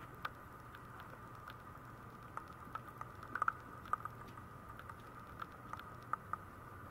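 Maltese puppies' claws clicking on a tiled floor as they move about: scattered, irregular sharp ticks with a quick cluster a little past the middle, over a faint steady hum.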